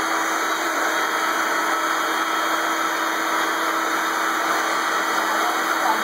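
Vacuum cleaner running steadily: an even rushing noise with a constant low hum under it.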